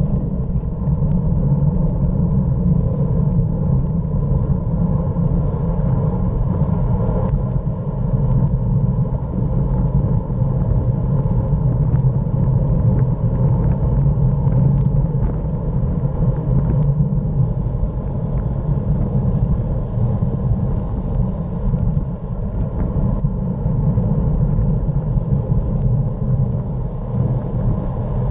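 Wind rushing over the microphone of a camera on a road bike descending at speed: a loud, steady low rumble, with a few faint clicks.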